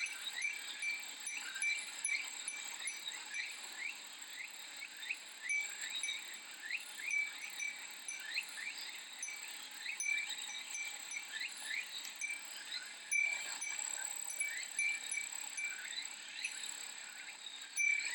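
Summer ambience of cicadas shrilling steadily, with many short, rapidly repeated rising chirps, and a glass fūrin wind chime tinkling.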